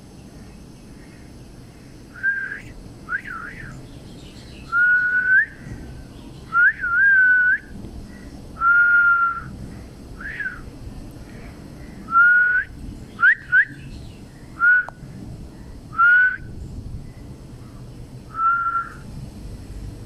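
A series of about a dozen clear whistled notes at a steady pitch, some sliding up at the end, spaced irregularly with short gaps between them.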